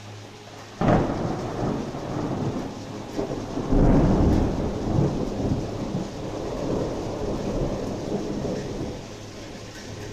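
Thunder: a sudden crack about a second in, then a louder, deep rumble from about four seconds in that rolls on and slowly eases. Rain hisses steadily underneath.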